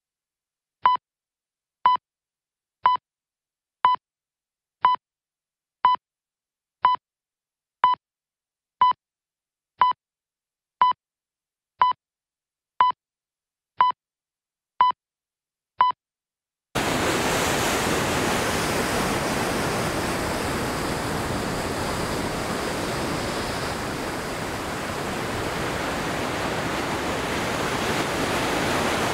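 Sixteen short, identical high electronic beeps, one each second. Then, about seventeen seconds in, a steady rushing noise like surf cuts in suddenly.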